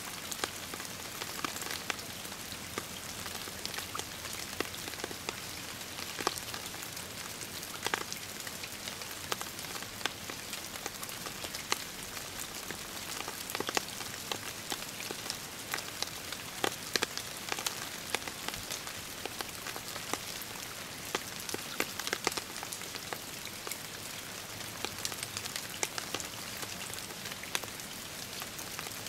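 Rain mixed with wet snow falling on a lake: a steady hiss of drops on the water, with many scattered, sharper drips throughout.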